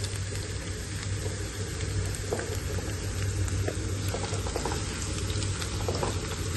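Sliced onions sizzling in hot oil in a pan, with the scattered light clicks and scrapes of a spatula stirring them.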